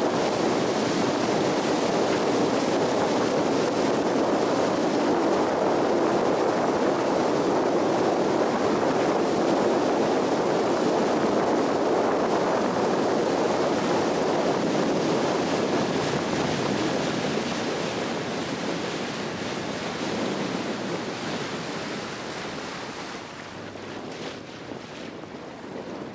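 Wind buffeting the microphone and water rushing past the hull of a small fishing boat running at speed, a steady loud rush that eases off over the last several seconds as the boat slows.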